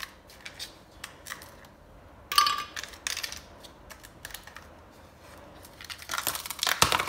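Ice cubes being popped from a plastic ice cube tray and dropped into a glass blender jar: a sharp clink with a short ring about two and a half seconds in, then a run of crackling clicks near the end as the tray is worked.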